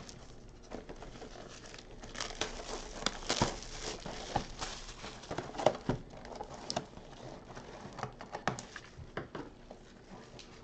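Clear plastic shrink-wrap being torn and crinkled off a sealed cardboard box of baseball cards, with irregular crackles and light taps as the box is handled.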